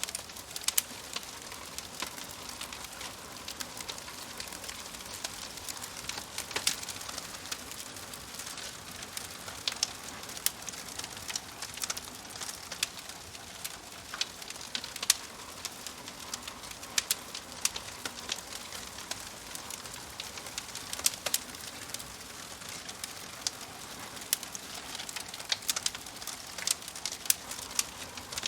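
Wood fire crackling: a steady soft hiss with frequent, irregular sharp pops and snaps.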